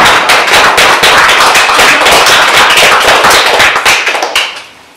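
Audience applauding, loud and close to the microphone, tailing off and stopping about four and a half seconds in.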